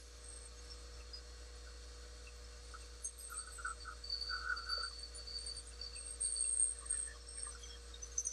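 A steady electrical hum, with faint scrapes and ticks of a metal caliper being set against a turned ebony pen blank on the lathe, mostly from about three to five seconds in.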